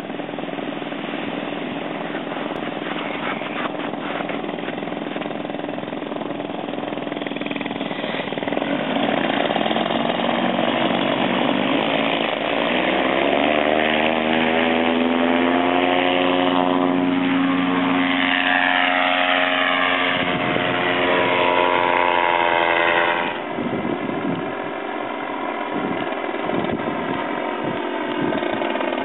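Flattop Ninja paramotor engine running. Its pitch climbs as it is throttled up, holds at high power, and then drops sharply to a lower setting about three-quarters of the way through.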